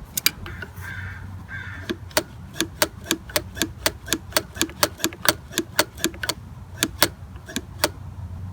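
A steady run of sharp clicks, about three a second, each with a brief ringing tone, starting sparse and becoming regular about two seconds in.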